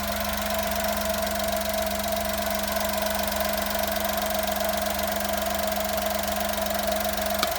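Honda Vamos kei van idling with a steady low moaning hum from its faulty alternator over the engine. Near the end there is a click and the hum cuts off while the engine keeps running, as happens when the alternator connector is unplugged, which shows the alternator is the source of the noise.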